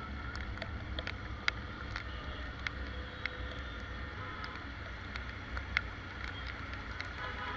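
Steady low rumble of wind on the microphone under faint street noise, with scattered sharp clicks.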